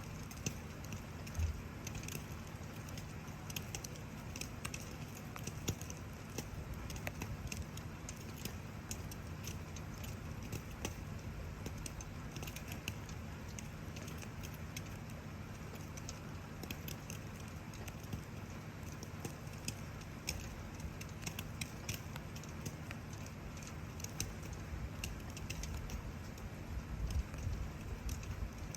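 Wood fire crackling with frequent small sharp pops, over the steady patter of falling rain and a low rumble of background noise.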